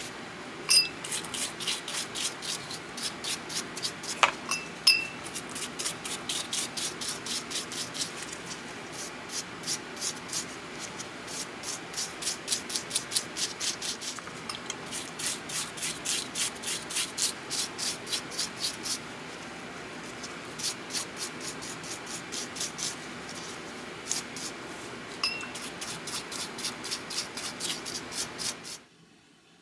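Rapid back-and-forth scrubbing strokes on a small steel pipe wrench as the dirt is cleaned off, about three or four strokes a second over a steady hiss, with a few light metal clinks.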